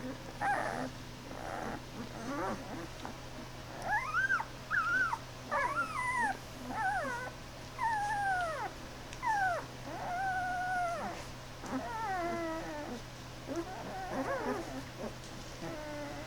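Ten-day-old Great Pyrenees puppies whimpering and squealing in a string of short, high cries that slide up and down in pitch, busiest from about four seconds in until near the end.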